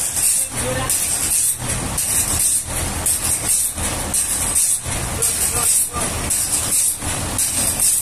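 Background music with a steady beat, about two beats a second, with bright high percussion on each beat.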